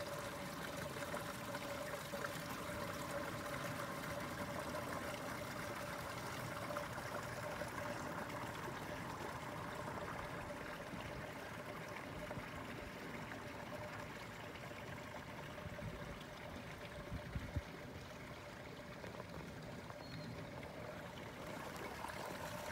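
Water trickling steadily through a small stone-lined channel, with a steady tone running underneath. Two short low thumps come about 17 seconds in.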